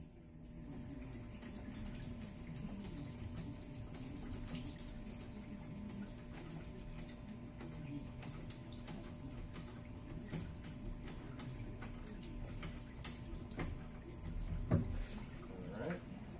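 Sunnen cylinder honing machine running with 280-grit fine stones stroked up and down in a cast-iron-sleeved Honda H22 cylinder bore: a steady low hum that wavers in pitch, with many faint ticks. It is the finishing pass that brings the bore to size and cuts the crosshatch for ring seating.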